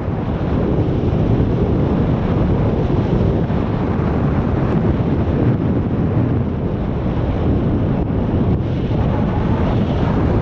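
Airflow rushing over the camera microphone of a paraglider in flight: a loud, steady wind rumble.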